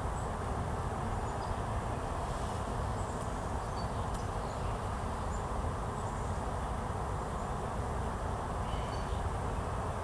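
Steady outdoor background noise with a low rumble, and a few faint, short bird chirps scattered through it.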